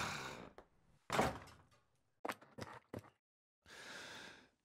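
Sound effects: two impacts about a second apart, each fading out, then a few quick clicks and a short airy whoosh near the end.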